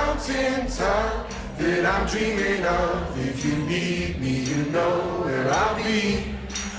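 Vocal music: voices singing a melody with gliding pitches, over a steady low sound underneath.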